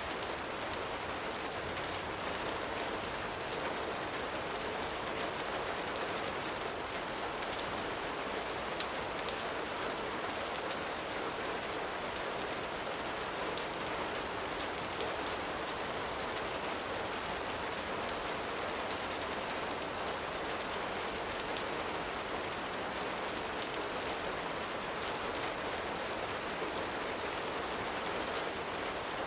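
Steady gentle rain falling, an even hiss with faint small ticks scattered throughout.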